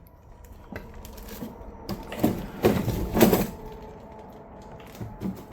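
Scuffing, creaking and knocking of a person clambering across a table and workshop clutter, loudest about two to three and a half seconds in, over a faint steady hum.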